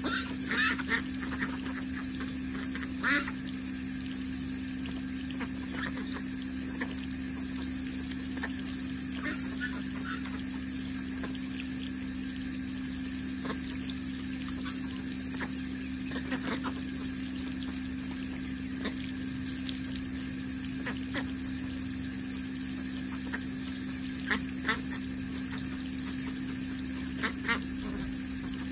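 Domestic ducks giving short quacks now and then while feeding at a water tub, over a steady high hiss and a low hum.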